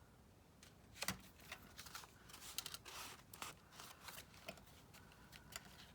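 Faint rustling of paper and craft materials being handled, with a run of short clicks and scrapes about a second in that thins out after about four seconds.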